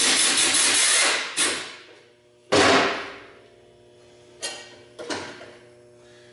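Compressed-air blowgun blowing off a lawn mower deck in hissing blasts: one lasting about a second, then a sharp blast about two and a half seconds in that tails off. Two short, fainter bursts follow near the end.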